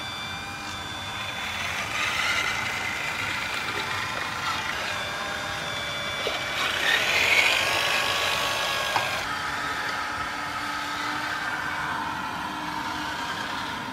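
Radio-controlled scale Liebherr 574 wheel loader model running, a steady mechanical whine with several high tones, a louder rush of noise about seven seconds in; the sound changes abruptly about nine seconds in.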